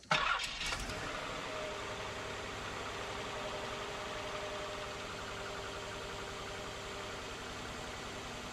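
The 3.0-litre VG30E V6 of a 1994 Nissan Maxima, fitted with new head gaskets, cranks and catches within about a second, loudest at the catch, then idles steadily.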